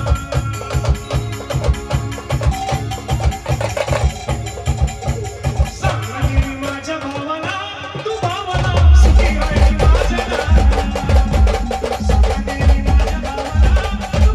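Brass band playing an instrumental passage of a slow Marathi song: a held melody over a steady drum beat. About eight and a half seconds in, the low drums come in much louder.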